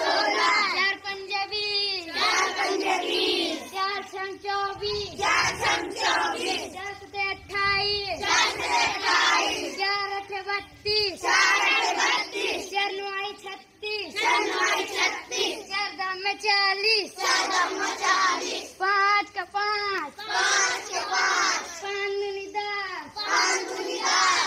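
A group of schoolchildren chanting multiplication tables in Hindi in unison, in a sing-song rhythm of short phrases, each line called and then repeated.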